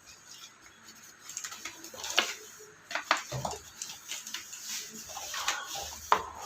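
Cardboard box and paper packaging being handled: irregular rustles and light knocks and clicks, picking up about two seconds in.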